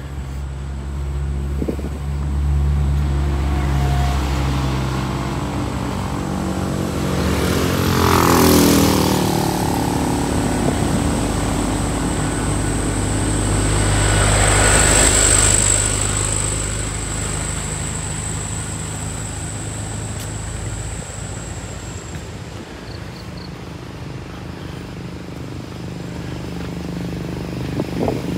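Road vehicles driving past on a residential street. An engine drones low at the start. About eight seconds in, a vehicle goes by, its engine pitch dropping as it passes. A second vehicle passes around fifteen seconds, and another engine grows louder near the end.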